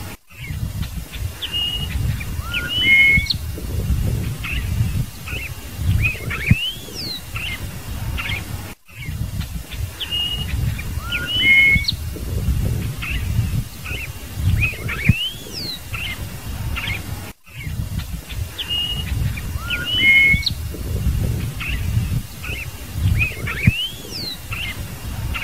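Scarlet-headed blackbird singing: clear whistled notes with rising and falling glides, over a low rumble. The same phrase sequence repeats about every eight and a half seconds, with a brief break between repeats.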